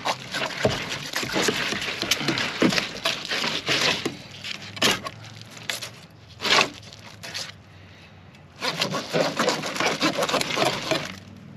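A fillet knife slicing and scraping along a fish's backbone and through its rib bones and scaly skin, in runs of rasping strokes with short pauses between them.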